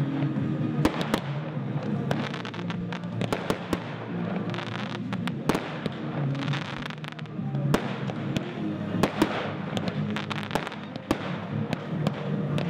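Fireworks display: aerial shells and cakes firing and bursting in an irregular run of sharp bangs, with music playing underneath.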